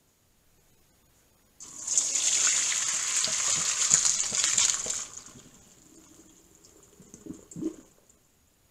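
Cooked egg noodles and their hot water poured from a saucepan into a metal colander in a sink. The water gushes and splashes for about three seconds, then fades as it drains, with a light knock near the end.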